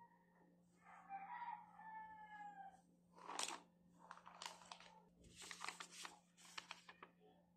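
A rooster crows once, faintly: one long call that falls slightly in pitch, about a second in. Then plastic shopping bags and a paper receipt crinkle and rustle as they are handled, in irregular crackles that are louder than the crow.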